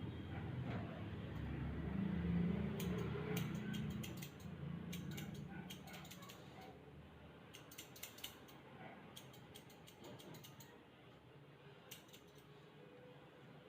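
Clusters of quick, sharp mechanical clicks that start and stop repeatedly, over a low rumble that fades after the first few seconds.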